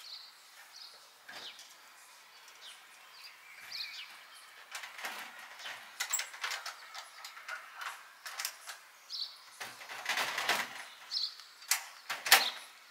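Metal frame parts of a folding camper trailer clanking, knocking and scraping as it is packed down by hand, sparse at first and busier in the second half, with a loud knock near the end.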